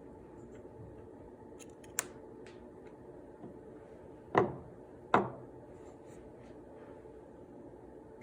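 Light clicks, then two sharp knocks a little under a second apart, from hardware being handled inside a desktop PC, over a steady low hum.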